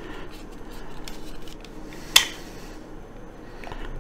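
Small screwdriver driving a tiny screw into a plastic model axle housing: faint scratching and light handling clicks, with one sharp click about two seconds in.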